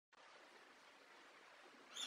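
Near silence: a faint, steady hiss, with a short high-pitched chirp right at the very end.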